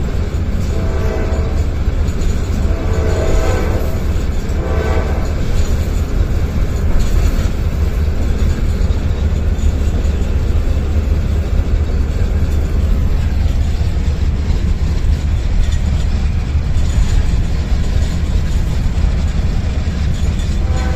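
Inside a Wabtec diesel locomotive's cab at speed: a steady, heavy low rumble of engine and wheels on rail. The locomotive's horn sounds in three short blasts in the first five seconds.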